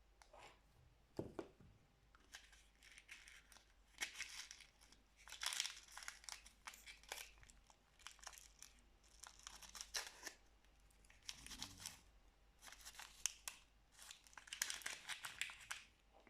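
Plastic packaging crinkling and tearing in irregular bursts, with scattered sharp clicks, as an unboxing package is handled and opened.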